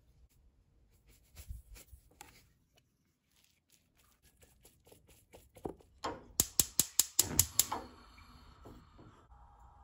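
A rice paddle faintly scraping and clicking as it mixes rice in a stainless steel bowl. Then, past the middle, a quick run of about ten sharp clicks over a second and a half: a gas stove's spark igniter lighting the burner. A faint steady hum follows.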